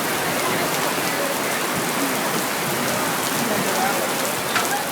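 Steady rain falling hard, a dense even hiss of drops, with one short tap a little before the end.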